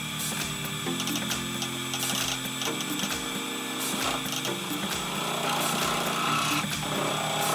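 Wood lathe spinning a spalted hickory blank while a turning tool cuts and scrapes into it, with a hiss and many sharp ticks of the tool against the wood. Soft background music with slowly changing chords plays underneath.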